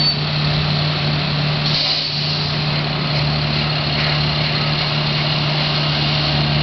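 A running engine's steady low hum, under a constant rushing noise.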